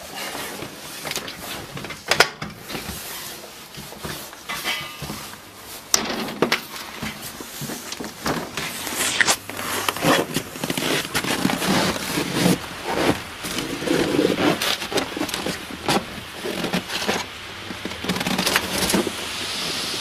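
Handling noise: the rustle of a heavy coat and fur hat with many short knocks, clicks and crackles as a door to the outside is opened and the man moves out onto the balcony. Near the end, a smooth, soft hiss as just-boiled water is flung into −41° air and turns into a cloud of ice fog.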